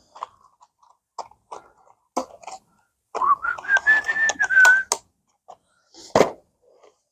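A person whistling a short tune for about two seconds, the pitch rising and then holding, with scattered small clicks and rustles of lure packaging being handled before it and a sharper knock near the end.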